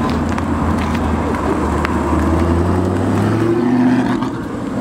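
Audi R8 Spyder's engine running at low revs as the car drives slowly past, a steady low drone that rises slightly in pitch and loudness between about three and four seconds in, then drops away as the car passes.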